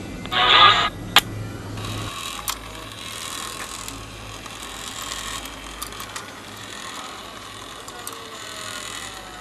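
A brief loud tone about half a second in, then the animated radio robot toy's small motor and plastic gear train running steadily with light clicking as its arms and head move. The mechanism is running on a cracked pinion gear that has been repaired with super glue.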